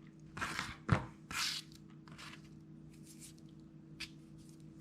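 Hands handling roe-bag materials: short rustles and a few sharp clicks from working the mesh, thread and small tools, over a faint steady low hum.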